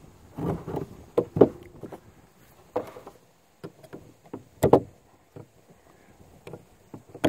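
Irregular metallic clicks and knocks as a brass-framed cap-and-ball revolver is handled, set down on a wooden table, and a knife blade is worked against its cylinder to pry off spent percussion caps that are stuck on the nipples. The sharpest knocks come about a second and a half in and again near five seconds.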